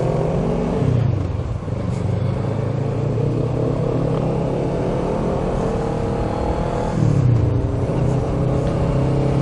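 Motorcycle engine under way, heard from a rider's helmet with wind noise: the revs dip just under a second in, climb steadily for several seconds, then drop again about seven seconds in before holding steady.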